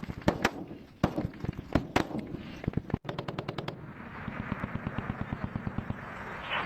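Battlefield gunfire: scattered single shots, then a rapid burst of automatic machine-gun fire about three seconds in, followed by a continuous dense rattle of fire.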